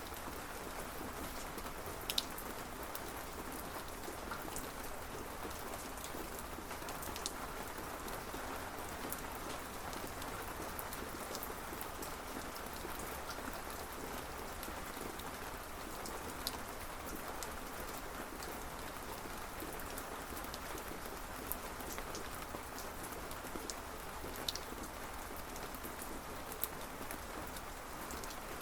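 Steady rain falling, an even hiss with now and then a single louder drop ticking close by.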